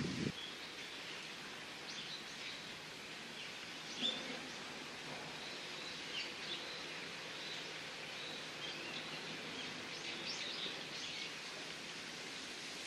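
Outdoor ambience: a steady background hiss with scattered short, high bird chirps, the clearest about four seconds in. A brief low rumble comes right at the start.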